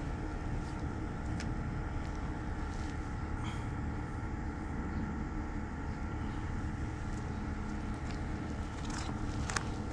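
Steady machine hum holding several steady tones over a low rumble, with a few light clicks or taps.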